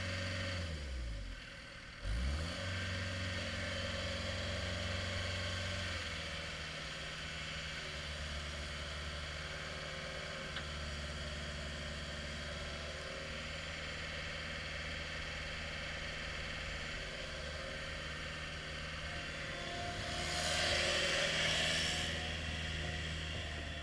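CAT 242B3 skid steer's diesel engine running under operation: it dips and revs back up about two seconds in, settles slightly lower after a few more seconds, then runs steadily, with a louder hissing surge near the end.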